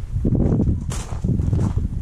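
Footsteps crunching on gravel at walking pace, a step about every half second to second, over a low, uneven rumble.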